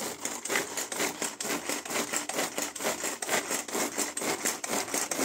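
Butterfly 900 ml pull-cord vegetable chopper being worked in quick repeated strokes, its blades spinning and chopping onion inside the plastic bowl with a steady rasping rattle. The onion is being minced finer.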